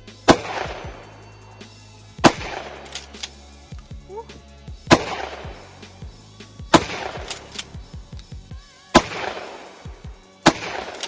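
Shotgun firing six shots, each a sharp blast with a short echoing tail, roughly two seconds apart.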